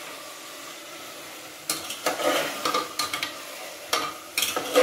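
Mutton and onions sizzling in a cooking pan. From about two seconds in, a spoon stirs the meat in a run of irregular strokes that scrape and clink against the pan.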